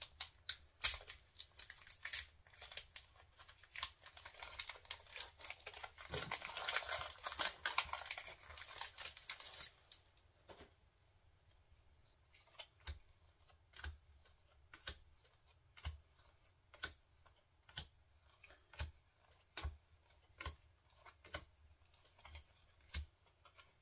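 A Pokémon card booster pack wrapper being torn open and crinkled. About ten seconds in, this gives way to soft single clicks about once a second as the cards are flipped through one at a time.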